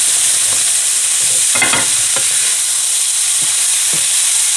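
Seafood and vegetable stir-fry sizzling steadily in a pan as a spatula stirs and tosses it, with a few short scrapes and knocks of the spatula against the pan, the strongest about one and a half seconds in.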